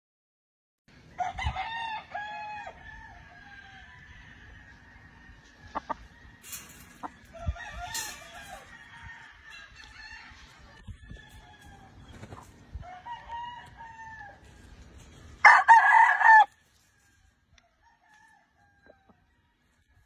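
Gamefowl roosters crowing again and again, with some clucking; one much louder, close crow comes about three-quarters of the way through and lasts about a second.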